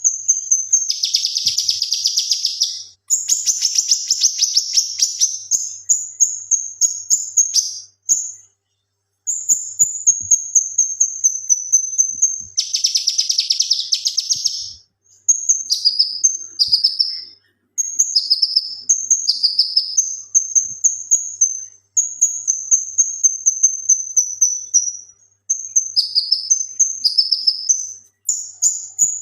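Male cucak kinoi singing loudly: long runs of high, fast-repeated notes and short falling slurs, broken by dense, rapid chattering bursts (the 'tembakan') about a second in, around three seconds and again around thirteen seconds, with a few brief pauses.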